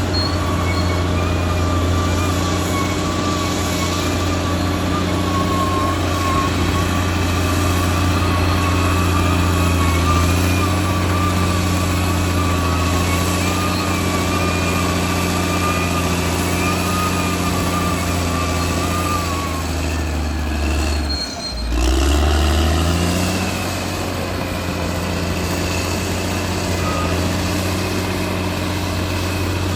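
Caterpillar D6R XL bulldozer's diesel engine running steadily under work, with a wavering high whine over it for most of the time. About two-thirds through the sound dips briefly, then the engine rises in pitch and settles back to a steady run.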